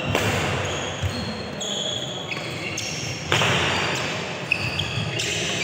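Badminton rally on an indoor court: several sharp racket strikes on the shuttlecock and short squeaks of sneakers on the court mat, echoing in the hall.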